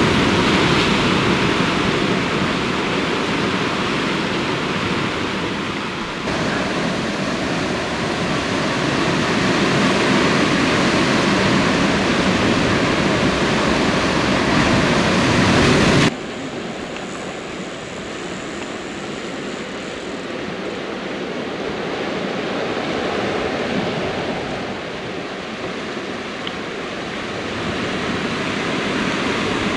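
Steady rush of sea surf breaking on rocks. It changes abruptly about a fifth of the way in, then drops to a quieter level about halfway through.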